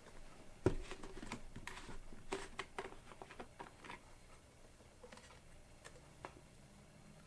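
A plastic motor-oil bottle being handled and opened: a sharp knock, then a run of light clicks and rustles for a few seconds that thins out and fades.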